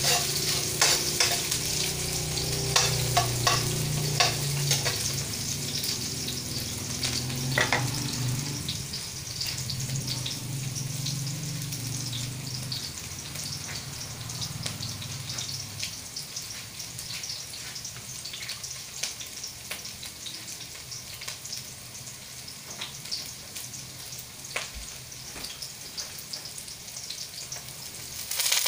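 Food sizzling in a hot wok on a gas burner, with a spatula clicking and scraping against the pan in the first several seconds. The sizzle then settles into a quieter steady hiss.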